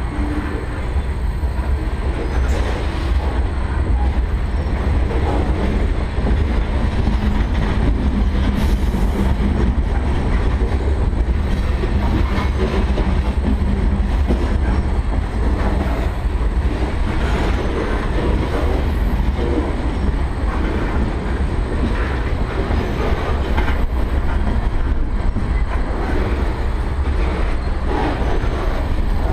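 Freight train of gondola cars rolling past close by: steel wheels rumbling steadily on the rails, with irregular clanks and clatter throughout.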